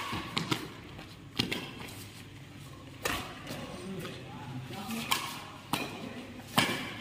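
Badminton rackets hitting a shuttlecock back and forth in a rally, a sharp smack every second or two, with faint voices of onlookers in the background.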